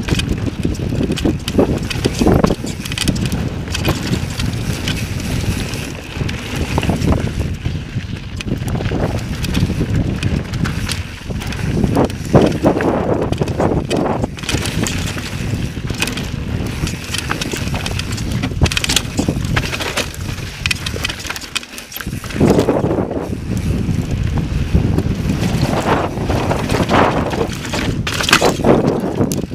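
Mountain bike ridden over sandstone slickrock and dirt singletrack: the tyres rumble over the rock, with frequent knocks and rattles from the bike as it hits bumps, and some wind on the microphone.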